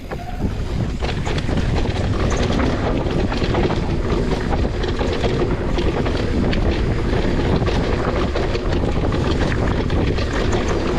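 Mountain bike descending a dusty dirt singletrack at speed: steady wind rush on the camera microphone over the rumble of the tyres and light rattling on rough ground. It picks up to full level about half a second in.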